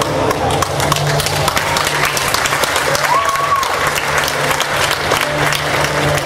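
Audience applauding: a dense run of claps over a steady low hum, with one short whistle-like note about three seconds in.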